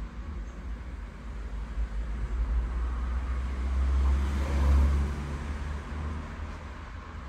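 Low rumble of a passing road vehicle that swells to its loudest about four to five seconds in, then fades.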